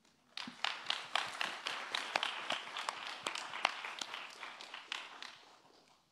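Audience applauding: many people's hand claps that start about half a second in and die away near the end.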